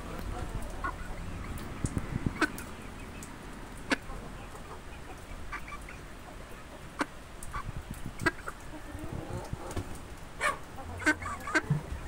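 Chickens giving short, scattered clucks and squawks, with several coming in quick succession near the end.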